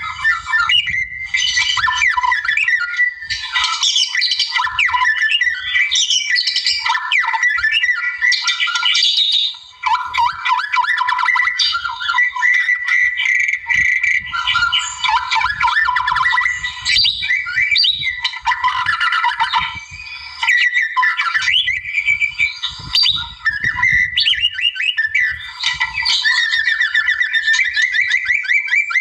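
White-rumped shama singing almost without a break: a long, varied song of rapid whistled phrases and trills, with short pauses about ten and twenty seconds in.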